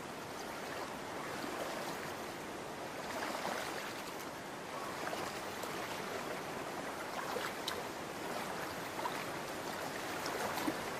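Shallow water of a salmon stream running steadily, with a few small splashes.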